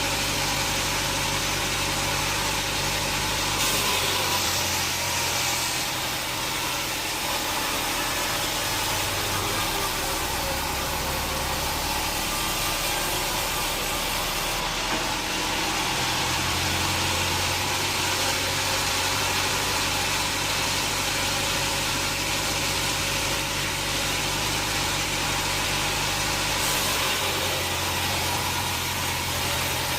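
Sawmill machinery running steadily: an engine-like hum under a constant hiss, shifting slightly in tone a few times.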